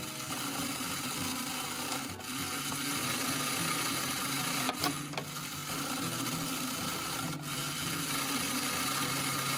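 Toy claw machine's small motor whirring steadily as the claw travels and drops, with a few clicks from the mechanism and a simple stepping tune playing over it.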